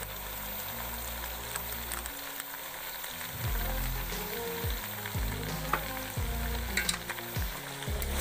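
Beef and bones sizzling steadily as they are browned in hot oil in a metal pot.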